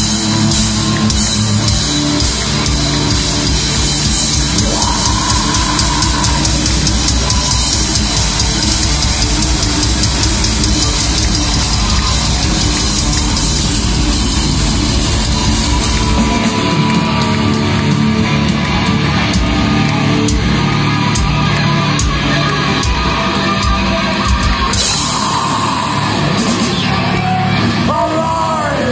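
Heavy metal band playing live at full volume: distorted electric guitars and drum kit. The deepest low end drops away about halfway through while the guitars carry on.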